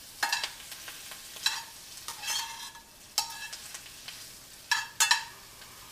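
Crown-tipped coral mushrooms frying in butter in a skillet, with a faint steady sizzle and several short scrapes and clatters as they are lightly tossed with a utensil.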